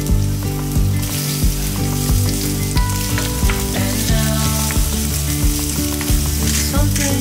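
Sliced onions sizzling in a stainless steel frying pan, stirred with a wooden spoon from about halfway in. Background music with a steady beat plays under the sizzle.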